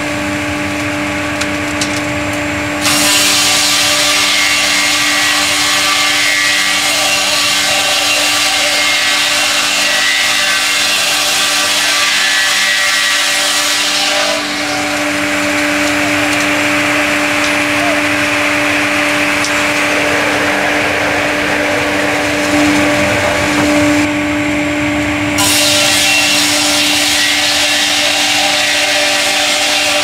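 KP58 horizontal circular sawmill, its pair of horizontal circular blades driven by two electric motors, running with a steady hum. From about three seconds in the blades bite into a log and rip it lengthwise with loud sawing noise. The cutting noise thins out around the middle and comes back strongly near the end.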